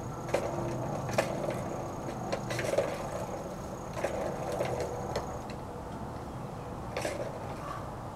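Plastic ball rattling and knocking around a cat's circular track toy as a kitten bats at it: irregular clicks and knocks, with a quick cluster a little past two seconds in and another knock near the end.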